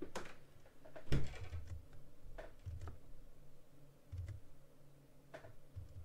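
Computer keyboard keystrokes: several separate taps spread out, some with a soft low thump, the loudest about a second in.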